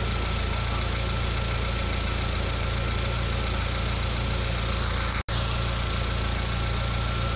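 Chevrolet Corsa 1.4's four-cylinder engine idling steadily. The sound breaks off for an instant about five seconds in.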